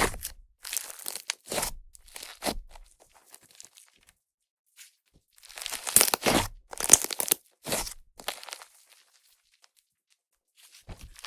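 Fluffy clay-and-butter slime made with Yoda clay being squeezed and pulled by hand, giving short bursts of crackly, sizzling squelches as trapped air pops, like fizzing soda. The bursts come in two clusters with quiet pauses between them.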